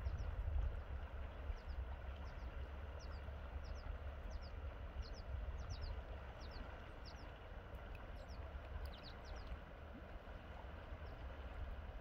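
River water rushing steadily over a rocky bed, with a low rumble of wind on the microphone. A small bird gives short, high, downward chirps, many in quick pairs, from about a second and a half in until about ten seconds in.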